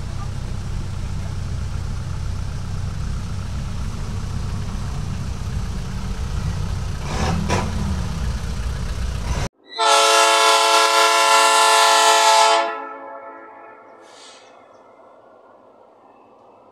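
A steady low rumble, then after a sudden cut a locomotive's air horn sounds one loud blast of about three seconds, with several notes together, and fades away as the train approaches along the line.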